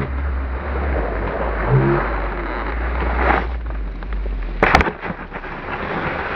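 Skis sliding over groomed snow with wind buffeting the microphone: a steady rushing noise over a low rumble, which drops away about five seconds in. One sharp clack just before the rumble stops.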